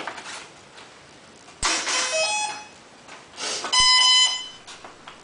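An electric RC model's speed controller sounding its power-up tones through the motor as the flight battery is connected. A click is followed by a short run of beeps that step in pitch, then about two seconds later a second click and a louder steady beep.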